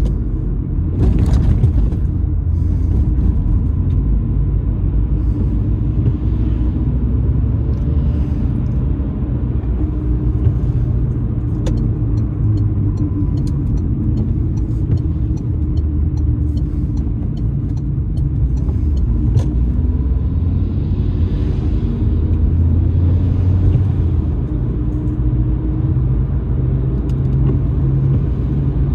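Car driving on a wet road, heard from inside the cabin: steady engine and tyre rumble, with scattered faint ticks. A brief louder rush comes about a second in.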